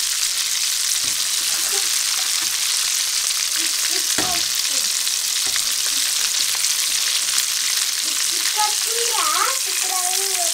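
Hot oil sizzling steadily as dosa-batter-coated poornam boorelu deep-fry in a steel kadai, with a single knock about four seconds in.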